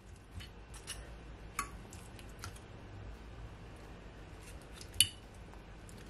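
Metal kitchen tongs turning sauce-coated chicken wings in a glass baking dish: a few scattered clicks and clinks, the sharpest about five seconds in.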